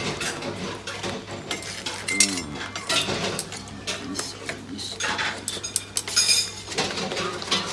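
Metal cookware and utensils clattering and clinking in irregular knocks during cooking, with a voice briefly heard.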